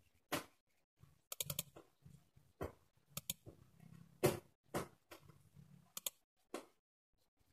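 Computer mouse buttons clicking: a string of sharp single clicks and quick double clicks, unevenly spaced, as folders and a file are opened.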